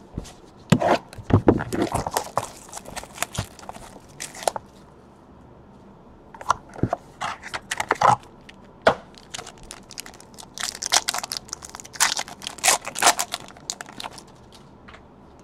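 A trading-card box's packaging being opened by hand: cardboard handled and a plastic pack wrapper torn open and crinkled, in three bursts of crackling with short pauses between.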